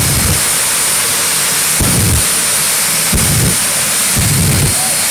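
Jet engine of a jet-powered 1940 Ford pickup running with a loud, steady hissing roar, punctuated by four low thumps from flame bursts out of its exhaust, the first right at the start and the rest a second or two apart.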